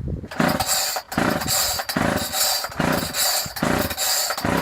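Chainsaw being pull-started: a quick run of about six recoil-starter pulls, a little under a second apart, each a short whirring rasp as the engine turns over. The engine never catches; the saw won't start.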